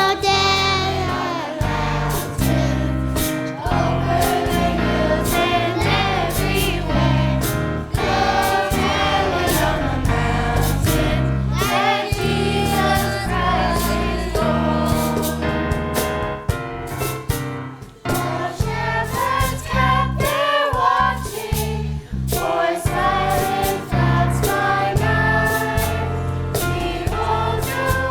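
A choir singing with a full band accompaniment: a steady drum beat and bass under the voices, the music dipping briefly about two-thirds of the way through.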